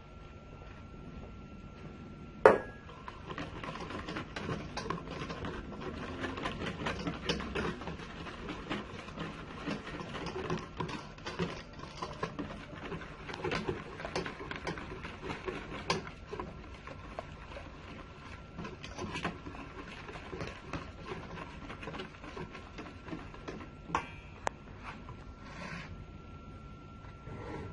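Thick egg-and-spice marinade being stirred in a bowl: a sharp knock about two seconds in, then fast, irregular scraping and clicking for about fourteen seconds, which thins out to a few taps near the end.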